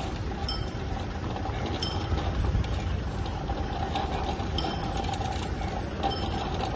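Outdoor street ambience with a steady low rumble, and a faint, high metallic clink repeating about every second and a half.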